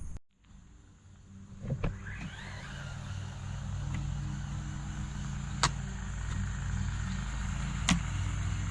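Brushless electric motor and drivetrain of a 1:14 4WD RC truck running as it drives through tall grass: a steady whine that starts after a brief gap, with a few sharp clicks along the way.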